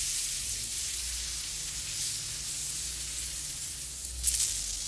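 Steady hissing noise with a low hum beneath it, and a brief cluster of clicks about four seconds in.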